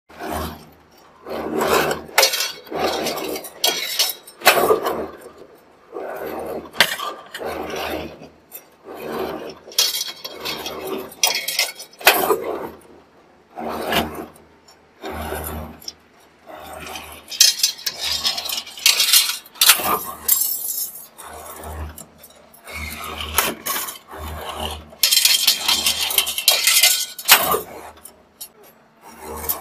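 CNC rebar straightening and bending machine working steel rebar: irregular metallic clanking and rattling every second or two, with a low motor hum that keeps starting and stopping.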